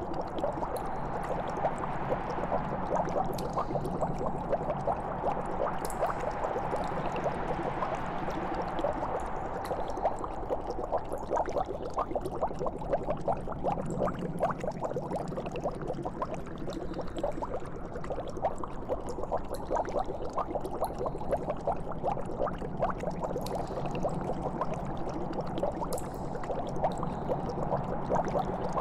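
Liquid bubbling and gurgling in a steady stream of small pops, over a low steady hum.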